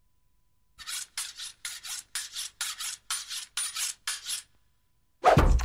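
Rhythmic rasping strokes, eight in all and each a quick double pulse, like a blade or file drawn back and forth. Then, near the end, a single heavy thud.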